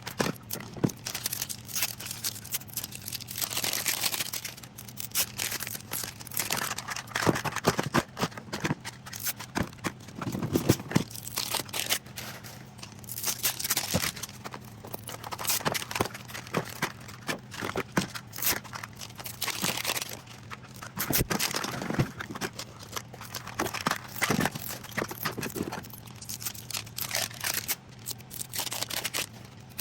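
Mini Brands plastic capsules being handled and pulled apart into their wedges: a busy, irregular run of plastic clicks and clacks with crinkling rustles.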